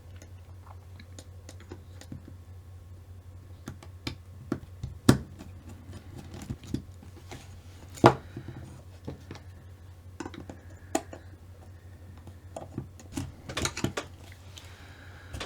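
Small plastic and metal kit parts being handled and fitted together by hand on an RC stadium truck's rear suspension: irregular light clicks and taps, with two sharper knocks about 5 and 8 seconds in and a quick cluster of clicks near the end, over a low steady hum.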